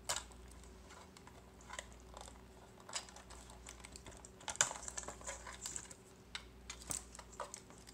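Plastic wiring-harness connectors being worked loose and unplugged from a car remote-starter module. Irregular small plastic clicks and rattling wires, busiest about halfway through.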